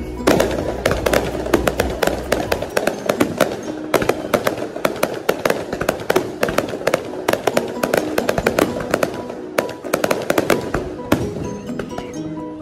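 Aerial fireworks going off: a dense, rapid run of sharp pops and crackles, several a second, with music playing underneath.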